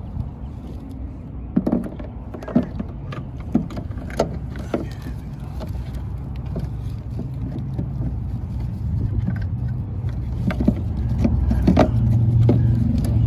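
Sharp plastic clicks and knocks from handling a car headlight housing and its module, over a low motor-vehicle engine rumble that grows louder in the second half.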